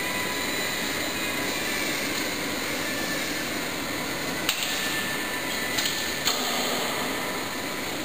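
Toyota forklift running steadily as it inches forward to set its raised load on a stand, with a few sharp knocks about halfway through.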